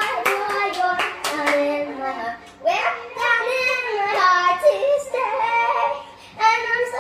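Young children singing a song together, with a few sharp hand claps in the first second and a half.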